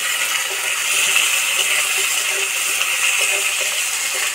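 Ginger-garlic paste and potato pieces sizzling in hot mustard oil in a kadai, a steady loud hiss, with a metal spatula scraping and stirring against the pan in quick small strokes.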